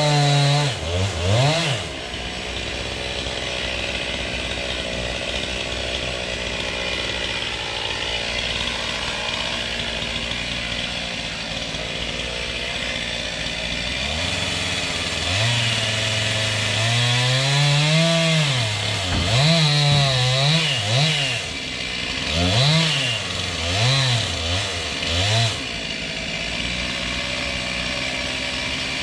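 Chainsaw engine running, steady for the first half, then revving up and down over and over in the second half.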